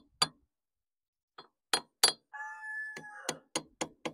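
Tapping on a tractor hydraulic pump housing with a metal tool to break it loose: a run of sharp metallic clinks, with a brief ringing tone in the middle, then quicker taps of about three a second near the end.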